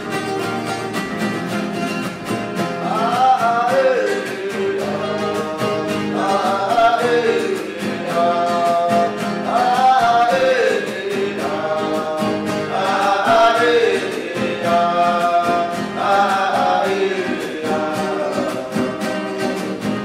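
Huni Kuin song: men singing over strummed acoustic guitars. The voices come in about three seconds in and return in short phrases every few seconds over a steady strum.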